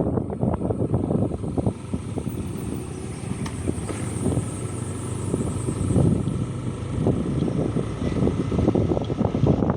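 Wind buffeting the microphone on a moving vehicle, with the vehicle's running noise underneath.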